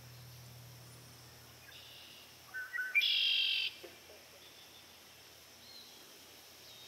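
Male red-winged blackbird singing its song once: a few short rising notes about two and a half seconds in, then a loud trill lasting under a second.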